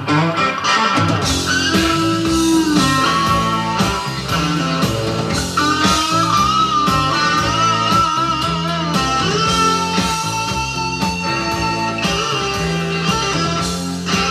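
Rock music led by electric guitar, played back from tape on a Fisher ER-8155 8-track/cassette deck as a test of the freshly restored unit.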